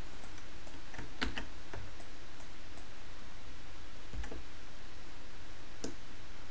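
Irregular clicks of a computer mouse, several in quick succession about a second in and single ones later, over a steady low hum and hiss of room and microphone noise.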